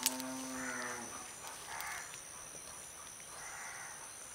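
One drawn-out animal call, about a second long, at the start, then three hoarse crow caws spaced about a second apart.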